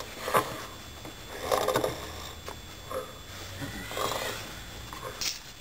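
A person snoring: a rough snore about every two and a half seconds, with a few short knocks in between.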